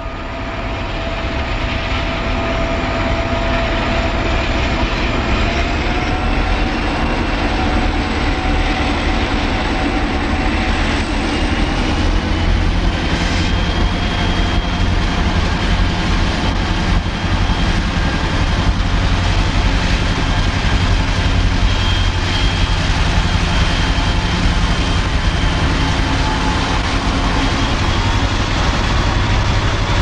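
Southern Railway six-axle diesel-electric locomotives, a three-unit lash-up led by No. 3228, running past: a steady, heavy engine rumble with a thin whine that rises slightly in pitch a few seconds in.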